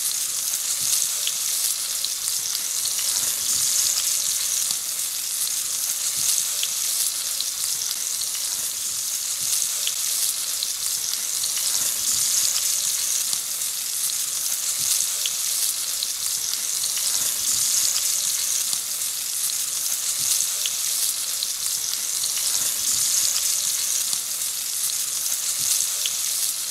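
Flour-dredged young bream frying in oil in a large aluminium pan: a steady sizzle with small pops here and there.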